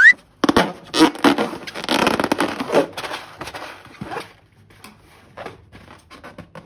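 Wet clicking and crackling of slime being squeezed and handled, dense for the first few seconds and then thinning to a few quiet clicks. A loud rising squeal cuts off right at the start.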